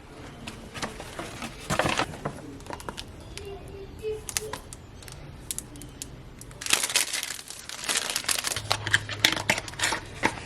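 Paper and packaging crinkling and rustling as a package is handled and opened, with scattered clicks and crackles. It gets busier and louder about two-thirds of the way in.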